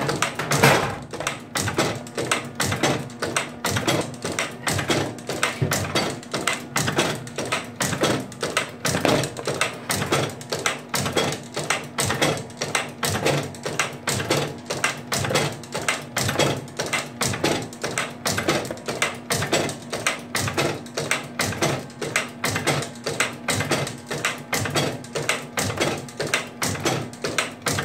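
Super Kook-E-King cookie machine running, its die and cutter clacking in a steady rhythm of about two strokes a second over a steady motor hum as it cuts granola dough into pieces.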